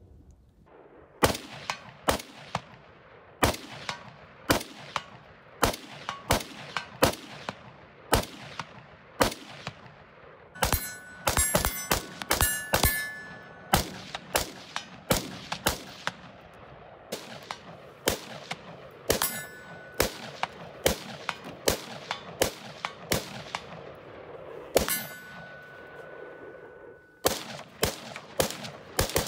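A steady string of semi-automatic rifle shots, about one or two a second with a quick burst of shots about ten seconds in. Several hits on steel plate targets ring on with a clear metallic tone.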